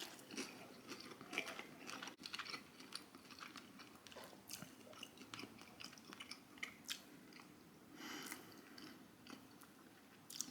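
A person chewing a bite of a chicken wing glazed in a sticky sauce, with faint, irregular wet clicks and crackles from the mouth.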